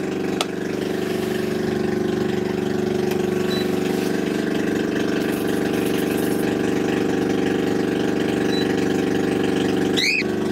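Small petrol generator with no exhaust fitted, running at a steady speed. A single click sounds about half a second in.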